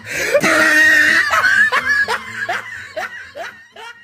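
Repeated bursts of laughter, loud at first with a noisy rush under it in the first second and a half, then thinning out and fading after about three seconds.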